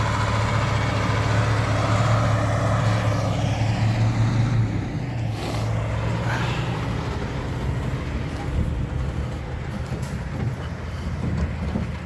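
Diesel engine of a log truck pulling away in low gear, a steady low drone that eases off after about five seconds as the truck moves off. A short hiss comes about five seconds in.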